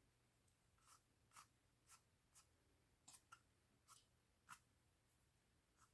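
Faint short rubbing strokes on a painted cardboard tube as black paint wash is streaked down it, about eight strokes, roughly two a second.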